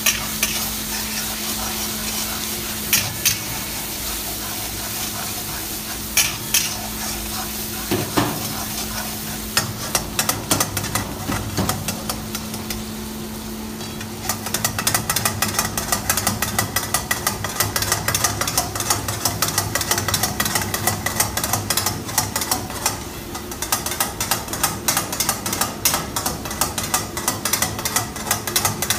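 A spatula stirring and scraping a sizzling tomato-and-spice masala gravy in a black wok over a gas flame. About halfway through the strokes turn into a rapid, steady scraping. A steady low hum runs underneath until then.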